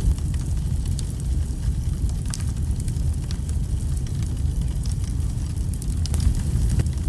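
Wood fire burning: a steady low rumble of the flames with scattered sharp crackles and pops of the burning logs.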